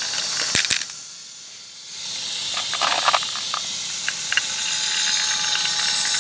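Marbles rolling down a Haba wooden marble run: a steady high rushing roll with scattered clicks as they knock against the wooden track. The roll dips briefly about a second in, then picks up again.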